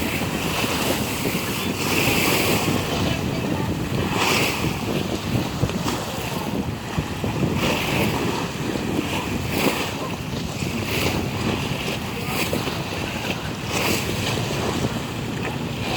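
Sea waves breaking and washing in, swelling every couple of seconds, with wind buffeting the microphone.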